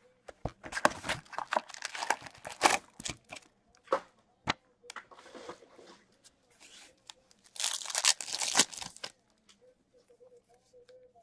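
Hockey card pack wrappers being torn open and crinkled, in irregular crackly bursts with a few sharp clicks. The longest, loudest stretch of tearing comes about eight seconds in.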